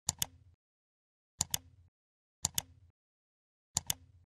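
Computer mouse click sound effect, repeated: four quick double clicks about a second and a quarter apart.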